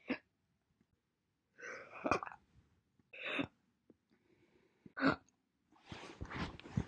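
A woman's hiccups, cut together one after another: about five short hiccups, some sharp and some with a breathy gasp around them, the last a longer noisy one.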